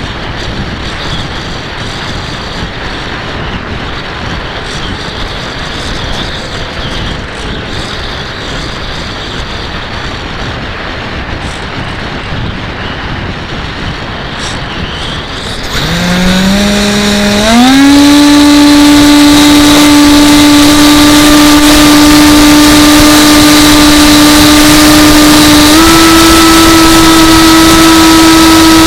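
Wind rushing over the microphone, then about halfway through the AXN Floater's electric motor spools up in a few quick steps to a loud, steady whine. The pitch steps up once more near the end as the throttle is raised.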